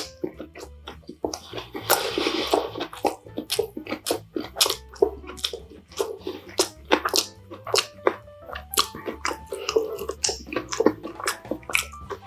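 Close-miked chewing of dumplings, with many quick, irregular mouth clicks and smacks.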